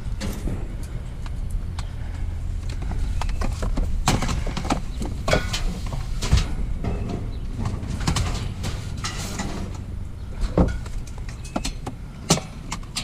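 Junk being handled and moved in a curbside trash pile: scattered knocks, clatters and rustles of objects, with the sharpest knocks about four, six, ten and twelve seconds in, over a steady low rumble.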